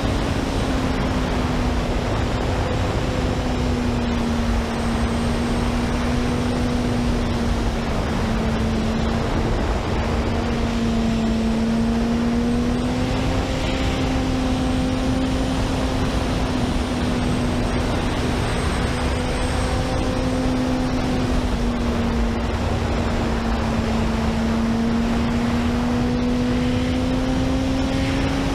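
Honda CBR sportbike's inline-four engine running at a steady cruising speed, its note holding nearly level with slight rises and dips, under a constant rush of wind and road noise.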